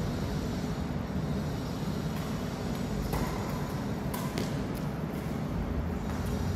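Badminton rackets hitting a shuttlecock: a few sharp hits in the middle, the strongest about a second apart, over a steady low hum.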